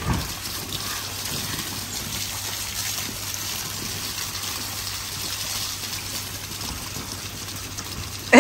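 Steady rush of running, gushing water, with a brief low thump right at the start.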